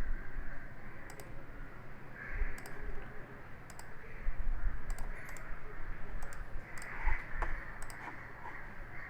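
Computer mouse clicking about once a second, at uneven intervals, while drawing lines in CAD software, over steady room hum.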